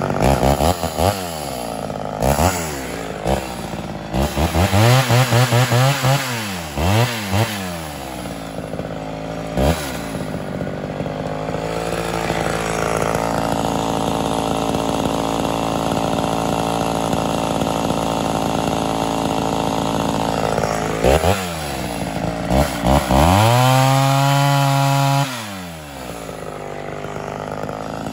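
Ported Homelite Super XL Auto two-stroke chainsaw engine revved in a string of quick throttle blips, then idling steadily. Near the end it is blipped again and held at high revs for about two seconds before dropping suddenly back to idle.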